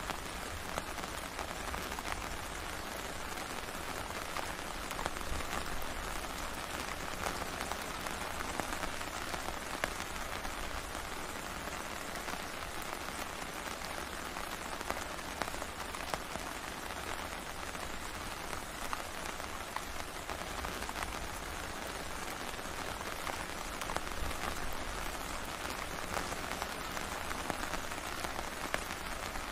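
Steady rain falling on a tent, heard from inside: a constant hiss with many separate drop taps on the fabric.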